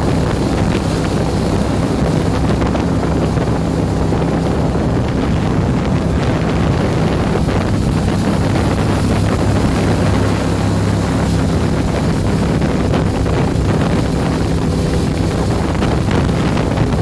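A small boat's motor running steadily, holding an even engine tone throughout, with wind buffeting the microphone.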